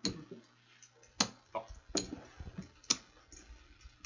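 Poker chips clicking, a handful of sharp, irregular clacks roughly a second apart, with some low handling thuds in between.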